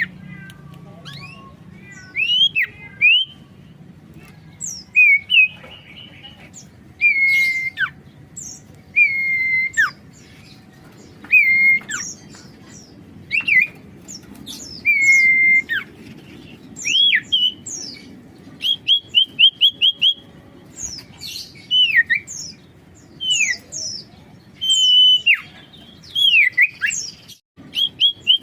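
Common iora (sirtu, cipoh) singing in full, lively song: clear whistled notes, some slurred up or down and some drawn out on one pitch before dropping, with quick runs of short repeated notes around the middle and again near the end.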